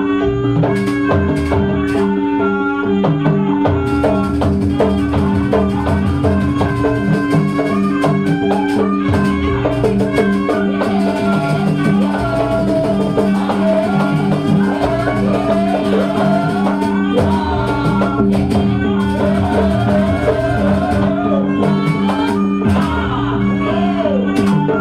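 Jaranan gamelan music accompanying the dance: steady drum beats under held low tones, with a wavering, ornamented melody line that comes forward in the second half.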